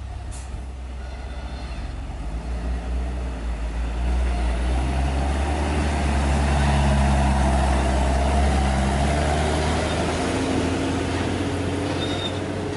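Hino dump truck's diesel engine running as the truck drives past on a dirt road. It grows louder to a peak as it comes closest, about six seconds in, then fades as it pulls away.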